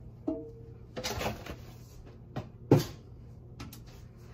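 Brief kitchen handling noises: a short squeak just after the start, a rustle about a second in, then two sharp knocks close together, the second the loudest.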